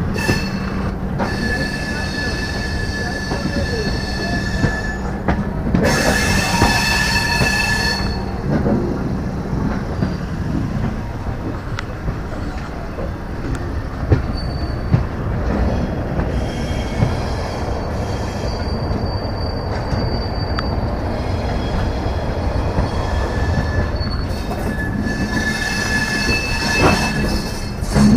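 Indian Railways LHB passenger coach running slowly over the tracks into a junction, a steady rumble of wheels on rail with a high metallic squeal from the running gear that comes and goes, loudest about six to eight seconds in and again near the end.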